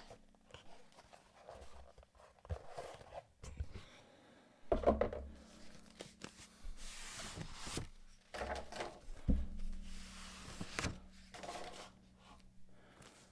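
Paper wrapping rustling and crinkling as a book is unwrapped by hand, with several knocks as the book and its box are handled on a desk.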